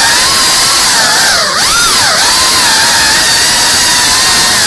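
GEPRC CineLog cinewhoop's brushless motors and ducted props whining loudly and steadily. About a second and a half in the pitch dips, swoops up and drops back as the throttle is eased and punched, then it settles again.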